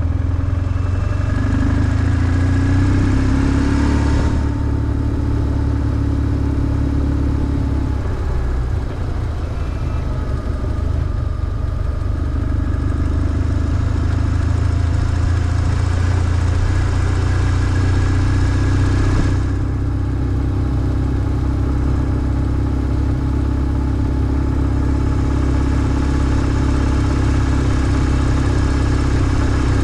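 BMW R1150GS's 1130 cc boxer twin running steadily under a ride, its sound easing briefly about eight seconds in and then picking up again.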